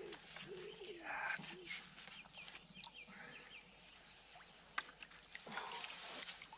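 Birds singing around the water: a low repeated cooing call near the start and many short high chirps from small songbirds, with one brief click near the middle.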